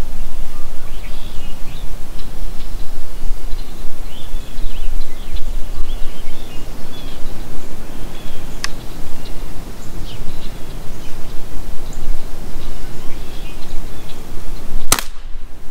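Outdoor ambience: steady wind rumble on the microphone with small birds chirping. A faint click comes about nine seconds in, and a single sharp crack near the end.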